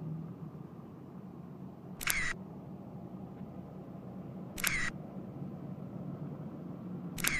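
Camera shutter click sound, three times about two and a half seconds apart, over a faint steady low hum.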